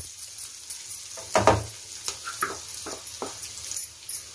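Chopped onions sizzling in hot oil in a non-stick frying pan as they are stirred with a wooden spatula. The spatula scrapes and knocks against the pan several times, loudest about a second and a half in.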